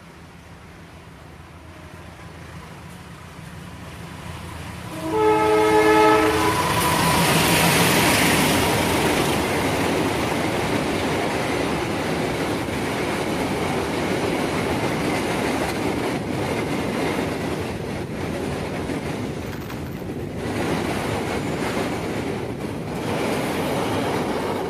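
Diesel-hauled freight train of fuel tank wagons approaching, its rumble growing. About five seconds in the locomotive sounds one horn blast lasting about a second and a half. Then comes the loud steady noise of the tank wagons rolling past close by.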